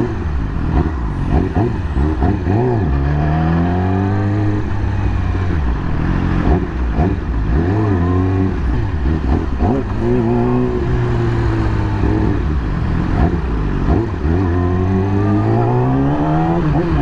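2020 Yamaha YZF-R6's inline-four engine while riding, its pitch climbing under acceleration, dropping back and holding steady in turns, with road and wind noise.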